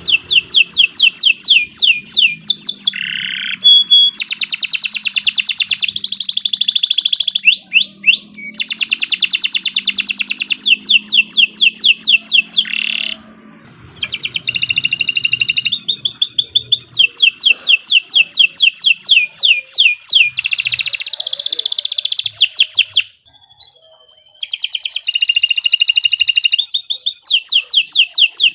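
Domestic canary singing a long, loud song of fast rolling trills, each phrase a rapid run of repeated sweeping notes, changing phrase every few seconds with two brief pauses. This is a canary "masteran" recording, a song played to train other canaries.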